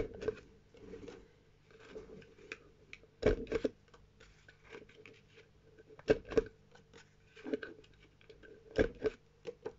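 Paper and small craft pieces being handled on a table: irregular rustles with light taps and knocks, a few of them louder.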